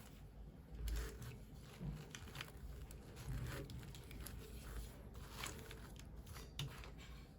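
Faint rustling and crinkling of packaging being handled during an unboxing, with scattered small clicks.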